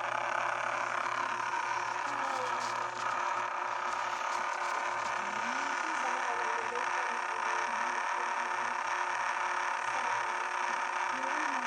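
Air raid siren holding a steady, unwavering tone, without rising or falling in pitch.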